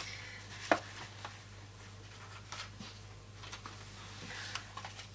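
Paper sticker sheets being handled on a desk: a few soft taps and rustles, the sharpest tap under a second in, over a low steady hum.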